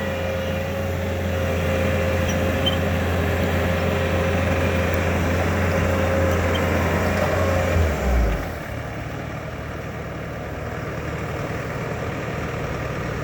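Bobcat T650 skid steer's diesel engine running with a steady whine. About eight seconds in, the whine and the deep hum stop with a brief low thump, and the machine carries on running more quietly as it is brought to rest for parking.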